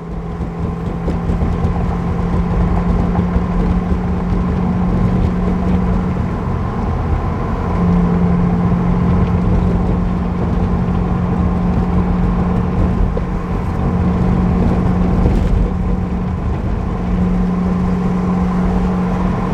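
Subaru WRX driving, heard from inside the cabin: steady engine hum over road and tyre rumble, building up in the first second or so and then holding steady. No rubbing or scraping from the tyres against the fenders is heard over the bumps.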